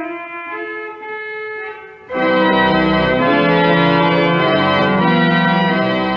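Church organ playing held chords as the closing music of the service: soft sustained notes, then about two seconds in a much louder, fuller chord comes in and moves through a few chord changes.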